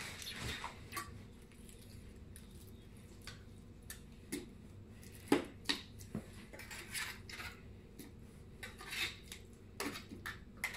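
Clinks and scrapes of an opened metal tin of wet cat food and a plastic bowl as the food is scooped out of the tin into the bowl: scattered light knocks, the sharpest two a little past halfway.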